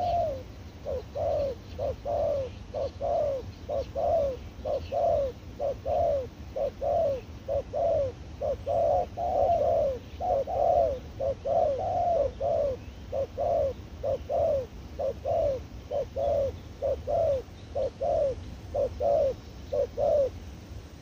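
Spotted dove cooing in a long, steady series of short, slightly falling coos, about one and a half a second, loud and close; the series stops about a second before the end.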